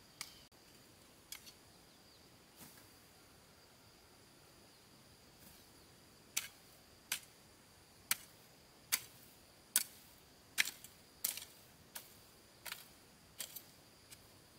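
Sharp blows of a hand tool: a few scattered strikes at first, then a steady run of about eleven blows, a little more than one a second, starting about six seconds in. A steady high insect drone runs underneath.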